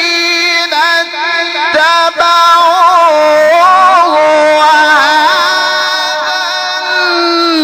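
A male Quran reciter's voice in a long melodic elongation in mujawwad style: held notes that waver and turn in pitch, with ornamented runs.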